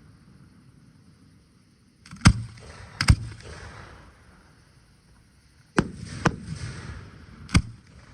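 Aerial fireworks bursting: about five sharp bangs over some six seconds, each trailing off in a rumbling echo.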